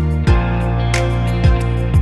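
Background music: sustained chords with three deep, falling-pitch bass thumps about a quarter second, a second and a half and two seconds in.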